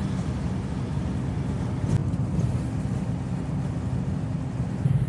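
Motorhome driving at speed on a motorway: a steady low drone of engine and tyre noise.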